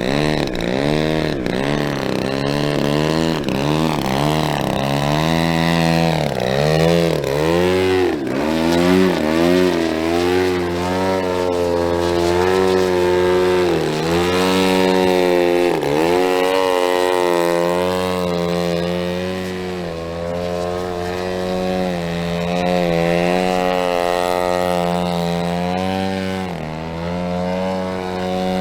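120cc DA twin-cylinder two-stroke gasoline engine of a giant-scale RC Yak 54 aerobatic plane in flight, its pitch swooping up and down again and again as the plane manoeuvres and passes.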